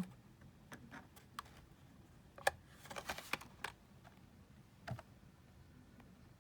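Scattered light clicks and taps of plastic-blistered, carded Hot Wheels cars being handled and set down. The sharpest tap comes about two and a half seconds in, followed by a quick cluster of clicks and a single tap near the five-second mark.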